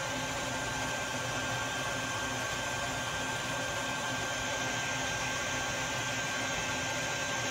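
Bucket Head bee vacuum (a shop-vac motor on a bucket) running steadily on very low suction while vacuuming bees from the attic, a constant whir with a thin steady whine.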